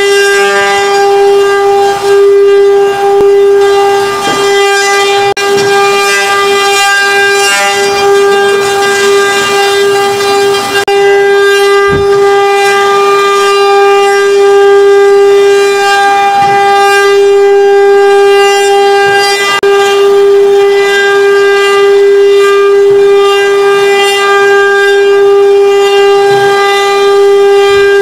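Eight CNC router spindles running together, a steady high-pitched whine with a hiss of cutting as the bits carve square wooden blanks turning on rotary axes.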